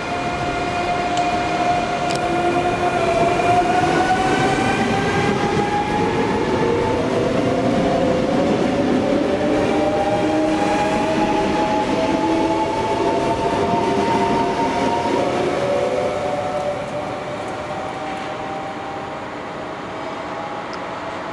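TER 2N NG double-deck electric multiple unit pulling away from the platform, its traction motors whining in several tones that climb slowly in pitch as it gathers speed. The sound grows fainter after about sixteen seconds as the train draws away.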